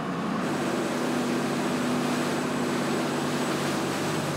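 Fishing boat's engine running steadily under way, with a rush of wind and water over a low drone.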